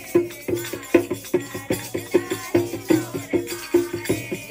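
Music with a steady percussive beat, about two and a half strokes a second, over held notes.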